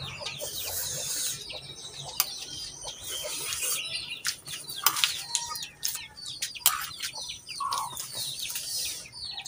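Birds calling all through, many short falling chirps one after another, with a few sharp clinks of spoons against plates and the small sounds of eating.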